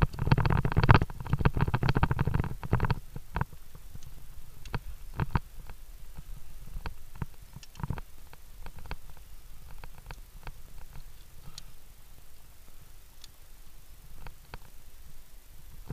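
Via ferrata gear knocking and clicking as the climber moves on the rungs: steel carabiners and lanyards clinking against the rebar rungs and cable, with rubbing and handling noise on the body-mounted action camera. The knocks come thick and fast with a low rumble for about the first three seconds, then thin out to scattered single clicks.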